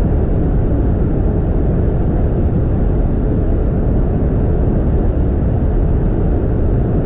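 Audi RS6's twin-turbo 4.0-litre V8 and the car's wind and tyre noise at about 300 km/h, heard from inside the cabin as a loud, steady, unbroken noise with a faint steady tone in it.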